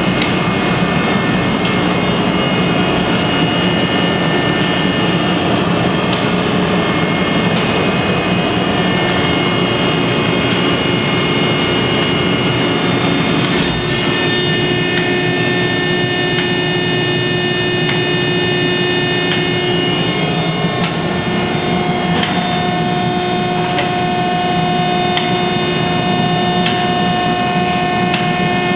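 Harris HRB-1C baler running: a steady mechanical din with several held whining tones that shift about halfway through and again a little past two-thirds in, with scattered light clicks.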